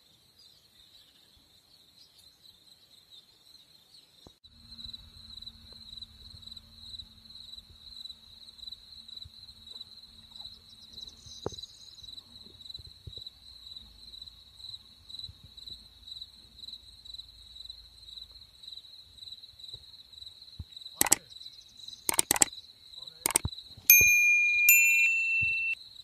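Crickets chirping in a steady, high, pulsing trill. Near the end come a few sharp clicks and then a bright electronic ding, the chime of an on-screen subscribe and like button animation, louder than the crickets.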